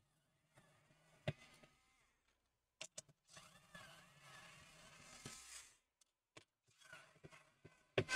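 Faint clicks and soft scraping from gloved hands working small screws and the plastic frame off an LCD panel, with a louder click near the end.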